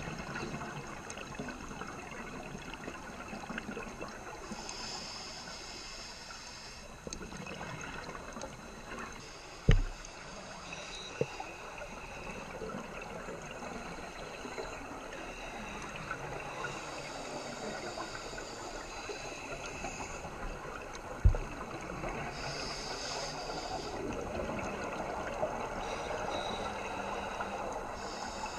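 Underwater sound from a scuba dive heard through a GoPro housing: a steady crackling hiss of the water with surges of divers' exhaled bubbles gurgling every several seconds. Two dull knocks, about ten and twenty-one seconds in, are the loudest sounds.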